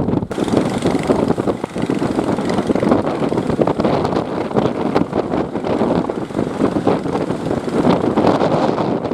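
Fishing boat motor running close by, a rough, steady drone mixed with wind buffeting the microphone.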